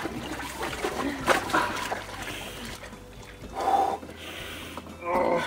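Ice water sloshing and splashing in a plastic tub as a man lowers himself in up to his neck, followed by two short, sharp breaths at the cold in the second half.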